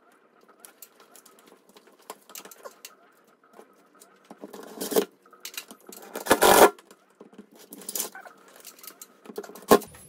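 Cordless drill driving screws through a plastic smoke alarm mounting base into the ceiling in short bursts, the loudest about six and a half seconds in, with light scratching and clicking of plastic between.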